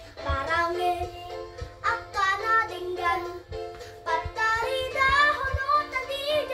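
A young girl singing a song over backing music.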